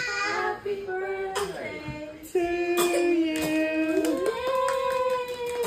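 A young child's voice holding long, drawn-out notes that slide up and down between pitches, with a few sharp clicks.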